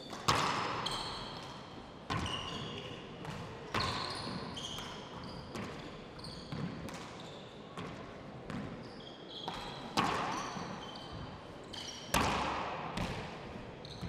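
Handball rally: the ball is slapped by hand and smacks off the walls and wooden court floor, sharp echoing hits every second or two, the first right at the serve. Short high squeaks of the players' shoes on the wooden floor come between the hits.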